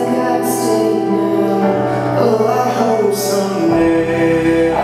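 A man and a woman singing a duet through microphones over instrumental accompaniment; deep bass notes come in near the end.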